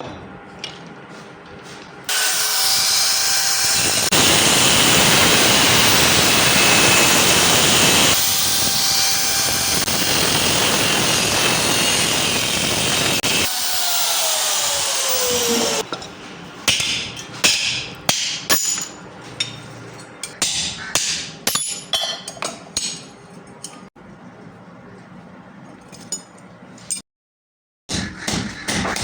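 A power tool working on rusty metal, making a loud steady grinding hiss for about ten seconds across several edit cuts. This is followed by a run of irregular sharp metal taps and clinks.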